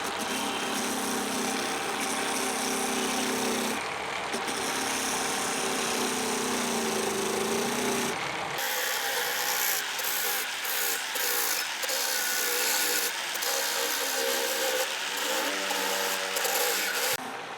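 A power tool running and grinding against a surface, its pitch wavering with the load. About eight seconds in the sound turns hissier and scratchier with brief stops, and it cuts off suddenly near the end.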